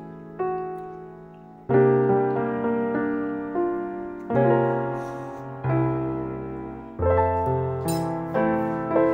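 Background piano music: slow chords, each struck and fading, a new one about every second and a half.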